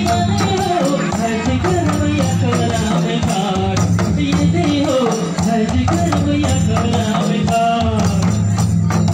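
Karma dance folk music: voices singing a wavering melody over steady strokes of hand-played barrel drums, with a jingling, rattling percussion.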